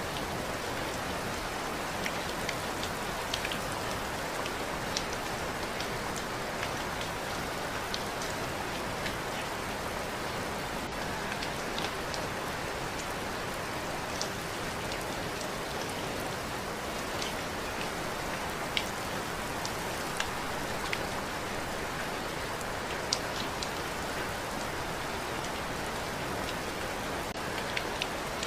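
Steady rain falling, an even hiss with scattered sharper drips and taps of drops hitting a surface.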